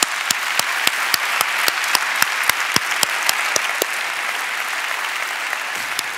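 A large auditorium audience applauding, with one nearer person's claps standing out in a steady rhythm of about three to four a second over the crowd's clapping.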